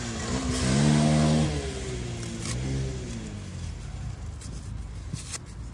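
A motor vehicle's engine revving up and dropping away, loudest in the first second and a half, with a shorter second rev about three seconds in.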